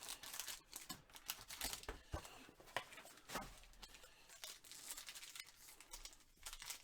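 Trading card box packaging being torn open and crinkled by hand: a run of irregular, faint rips and rustles.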